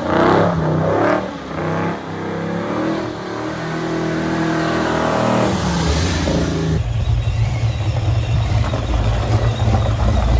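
Vortech-supercharged 1995 Ford Mustang GT's 5.0 V8 revving hard: its pitch rises and falls a few times, then holds and climbs as the car pulls. About two-thirds of the way through, this abruptly gives way to the engine's low, uneven rumble near idle.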